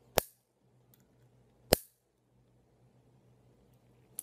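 Two sharp clicks about a second and a half apart: teeth biting down on a plastic ballpoint pen.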